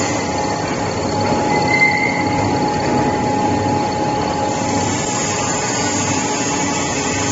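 Pet and fish feed extruder running while it turns out puffed pellets: a steady mechanical drone from its motors and screw, with a constant high whine over it.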